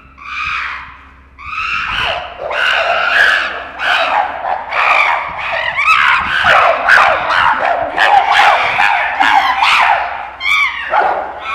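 A group of chimpanzees screaming, many high-pitched calls overlapping. After a couple of separate calls it swells about two seconds in into a continuous chorus, the uproar of a fight within the group.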